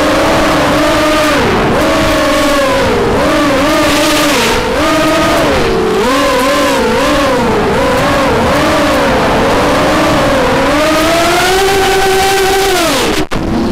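Armattan F1-4B racing quadcopter's Cobra 2204 2300 kV brushless motors and propellers whining, the pitch rising and falling constantly with the throttle, over a rush of air noise. Near the end the pitch climbs and holds high, then drops away, with a brief cutout just before the end.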